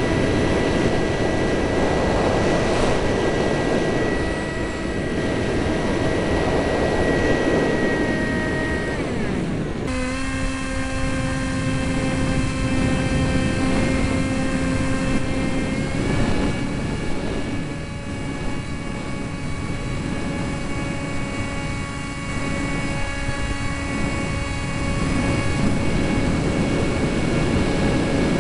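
Eurofighter Typhoon's twin EJ200 turbofan jet engines running with a steady whine over a rumble. The whine's pitch shifts suddenly about ten seconds in and again a few seconds later.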